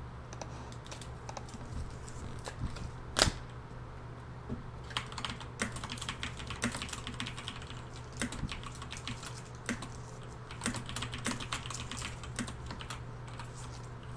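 Typing on a computer keyboard: quick, irregular key clicks that grow dense from about five seconds in, with one louder single knock about three seconds in, over a steady low electrical hum.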